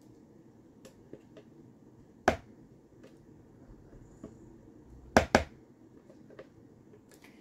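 Silicone spatula scraping and tapping a plastic container and bowl while batter is emptied out: a few sharp plastic knocks, one about two seconds in and a louder pair just after five seconds, with fainter ticks between.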